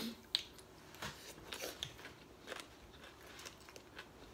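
Eating sounds close to the microphone: soft chewing and crunching of food, with scattered light clicks of a fork and spoon against a plate.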